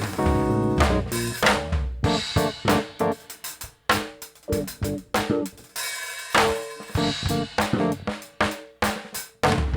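Live drum kit and keyboard playing an improvised instrumental groove: snare, kick and cymbal strikes in syncopated fills with short breaks, over held keyboard chords.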